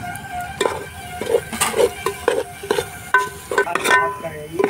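Metal ladle stirring snail meat and spices in a metal cooking pot over a fire. It makes rhythmic scraping strokes against the pot, about two a second, some with a slight metallic ring.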